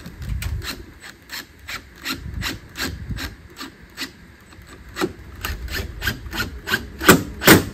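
Cordless drill driving screws through a wheel spat into a caravan's corrugated sheet-metal wall: a run of short, sharp strokes, about three a second, that grow louder near the end.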